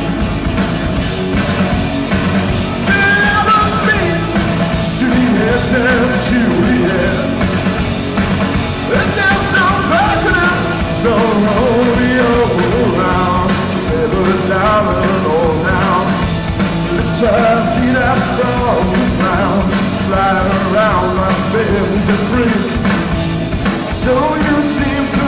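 Live rock band playing loudly: electric guitars, bass and drums.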